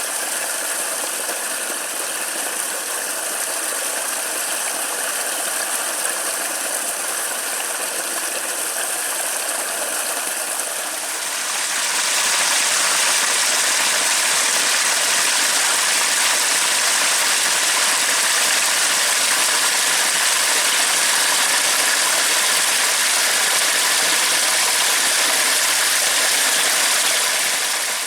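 Steady rain falling, a dense even hiss of drops that grows louder and heavier a little before halfway through as the shower intensifies.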